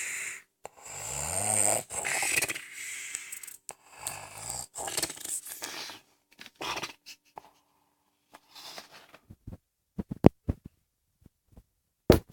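Snoring: repeated rasping breaths, one with a low buzzing pitch about a second in. The snoring thins out after about six seconds, and a few sharp clicks come near the end.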